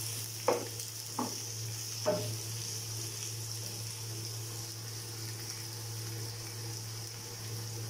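Sliced onions sizzling in hot oil as they are sautéed in a non-stick pan, stirred with a wooden spatula that knocks and scrapes a few times in the first couple of seconds. A steady low hum runs underneath.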